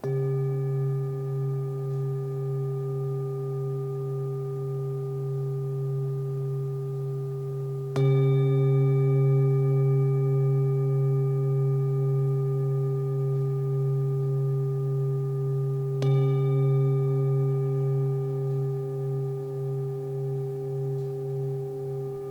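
Singing bowl struck three times, about eight seconds apart, each strike ringing on in a low, slowly wavering hum with higher overtones.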